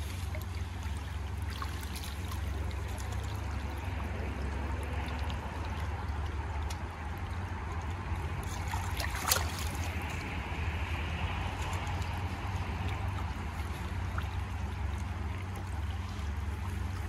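Shallow stream water trickling steadily over a low rumble, with one sharp click about nine seconds in.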